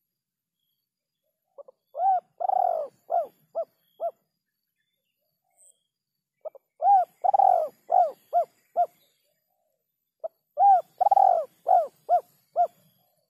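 Spotted dove (terkukur) cooing: three phrases a few seconds apart. Each phrase is a couple of short soft notes, a long coo, then three short clipped coos at the end, the "kuk 3" call type.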